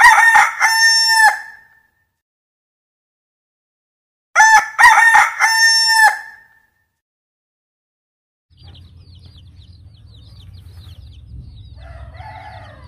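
A rooster crows twice, cock-a-doodle-doo: the first crow is already under way at the start and the second comes about four seconds in. After a few seconds of silence, a brood of young chicks peeps continuously in short, high, falling chirps over a low hum.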